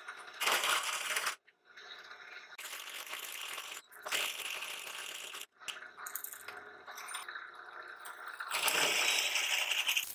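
Bench drill press running, its bit cutting into a steel block held in a drill-press vise, with a harsh scraping cutting noise over the motor's steady hum. The sound comes in short stretches that break off abruptly, loudest near the start and near the end.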